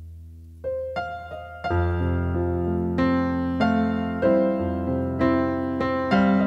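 Background music: a held tone fades out, then piano notes come in about half a second in and build into chords over a low bass.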